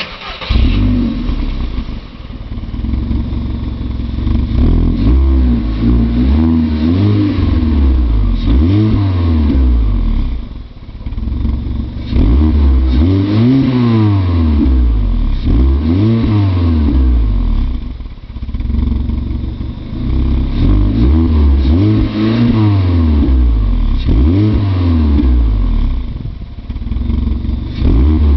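Skoda Octavia 1.4 16V petrol four-cylinder sounding through an aftermarket sport exhaust: it starts up at the beginning, then idles between groups of quick throttle blips, each rev rising and falling in pitch.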